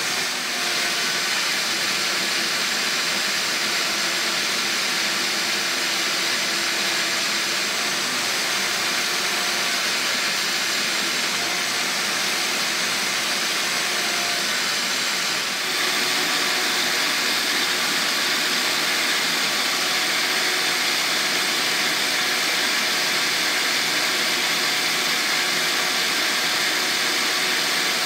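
Sears Craftsman portable belt sander running steadily while its sanding belt grinds an ash hatchet handle, a constant motor whine and belt hiss, slightly louder from about halfway through.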